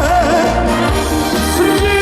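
Live band music of a trot song with a steady bass beat, a melody rising and falling over it.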